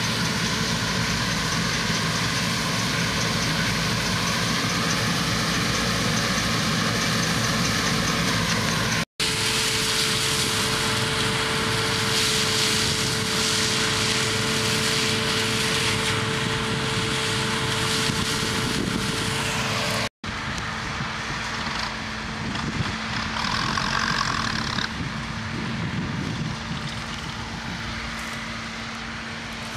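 Combine harvesters running while harvesting: a steady engine and threshing-machinery drone. It drops out for an instant twice, and after the second break, from a combine farther off, it is a little quieter.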